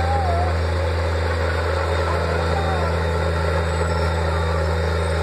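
Crawler bulldozer's diesel engine running steadily at work, a constant low drone.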